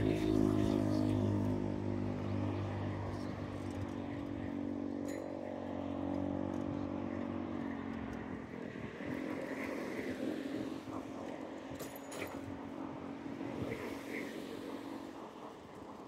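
Road traffic: a motor vehicle's engine running with a steady hum, loudest in the first half and slowly fading, then other vehicles passing later on.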